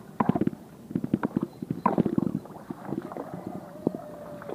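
Rapid clicking and rustling of someone clambering through mangrove branches and roots, coming in three quick clusters in the first two and a half seconds, with scattered knocks after that.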